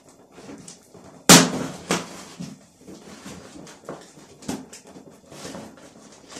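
Packing tape being peeled off and a cardboard shipping box pulled open by hand: crackling and scraping of tape and cardboard in short irregular bursts, with a loud sharp crack just over a second in.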